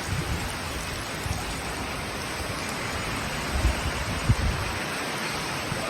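Heavy storm rain pouring down steadily, a dense even hiss, with a few brief low rumbles about midway.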